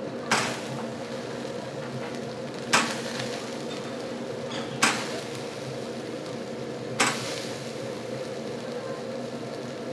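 Chicken skewers cooking on a wire grate over a grill, under a steady hum of grill-station machinery. Four short, sharp sounds come about two seconds apart as the skewers are handled on the grate.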